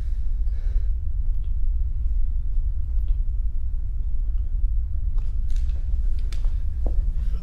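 A steady deep rumble, with faint scattered clicks and rustles in the second half.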